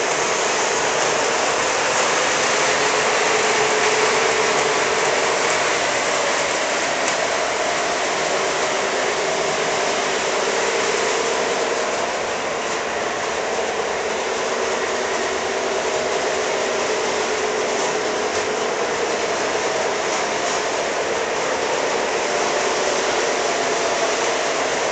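O-gauge model train running steadily around the layout track, a continuous rolling rush of wheels and motor.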